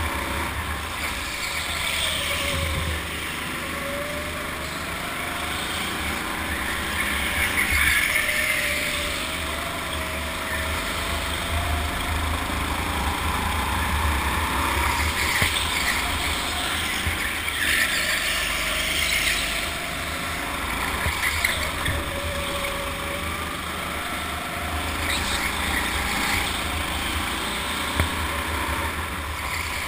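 Go-kart driving fast, recorded onboard: the motor's whine rises and falls with speed through the corners, over a heavy low rumble of wind and vibration on the camera. Brief stretches of hiss come and go.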